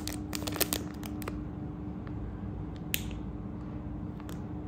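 Light clicks and faint plastic rustling from handling gold-bead necklaces and earrings in clear plastic packets: several clicks in the first second, then two sharper single clicks later, over a steady low hum.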